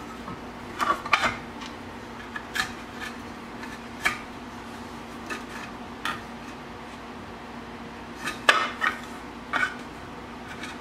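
Hard parts of an inline skate frame clicking and clacking as large skate wheels and their axle bolts are fitted into it and worked by hand and with a small tool: scattered sharp clicks, bunched around a second in and again near the end, over a faint steady hum.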